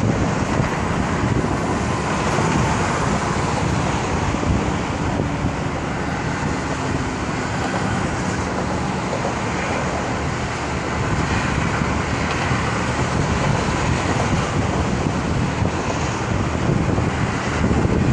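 Steady hiss and rumble of passing traffic on an elevated expressway, with no single car standing out.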